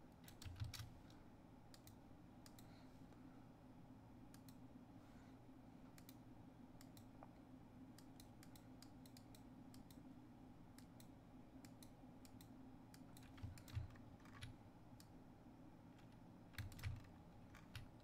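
Faint, scattered clicks of a computer mouse and keyboard over a low steady room hum, with a few soft low bumps.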